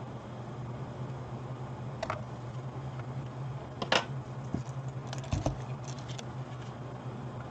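Metal tweezers clicking and tapping against LEDs on an aluminium LED board: a few sharp clicks, the loudest about four seconds in, followed by a run of small ticks and a dull knock. A steady low hum runs underneath.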